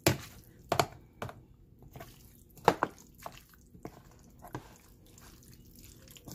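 A spoon stirring a wet chopped seafood salad in a plastic food container, knocking against the container in irregular clicks. The loudest click comes about two and a half seconds in, and the clicks thin out near the end.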